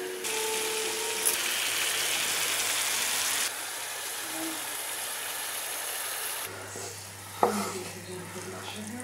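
Minced beef sizzling in a frying pan, loud for the first three seconds or so and quieter after. Near the end a wooden spatula knocks once against the pan and scrapes the meat out.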